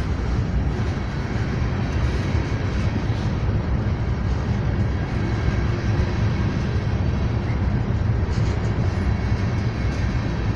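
Freight train rolling past close by: a steady, unbroken rumble of wheels on the rails.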